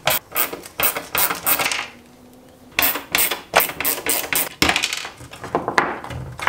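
Screwdriver, Torx screws and the plastic housing of a third brake light clicking and rattling as the light is taken apart: a run of small sharp clicks, a pause about two seconds in, then more clicks.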